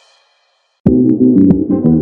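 Background music: the end of one track fades out into a brief silence, then a new track with pitched tones and sharp clicking beats starts suddenly a little under a second in.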